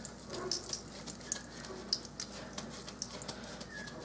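A little oil frying on low heat in a frying pan, crackling faintly with scattered light pops.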